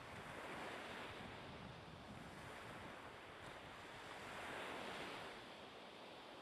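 Faint wind gusting over an open summit, a steady rush that swells twice, about half a second in and again around four to five seconds.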